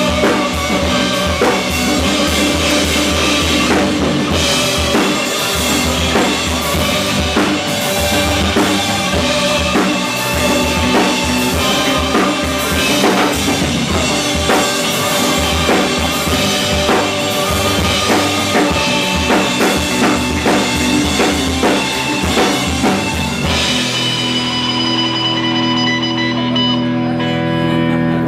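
Live rock band playing an instrumental passage, drum kit hitting hard under guitars. About 24 seconds in the drums stop and a held chord rings out.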